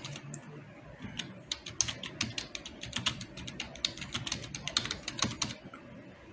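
Typing on a computer keyboard: quick, irregular runs of key clicks that stop about five and a half seconds in.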